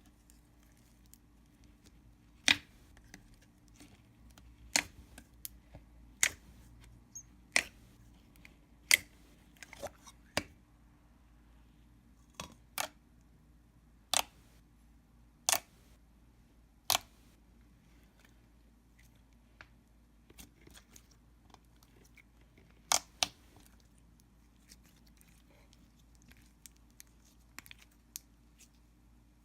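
Thick, glossy slime being pressed and poked by hand, making sharp clicks at irregular intervals of a second or two, then a long gap before a last pair of clicks.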